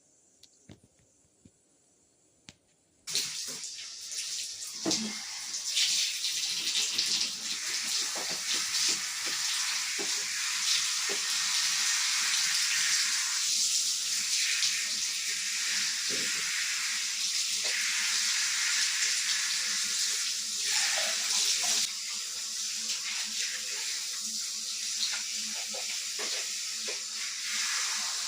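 Water from a tap running steadily, switched on about three seconds in, with small splashes and knocks as it falls into a basin or tub.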